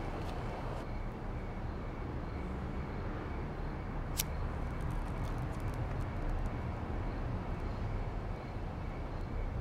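Steady background rumble of outdoor city ambience, like distant traffic. About four seconds in there is a single sharp click as a lighter is struck.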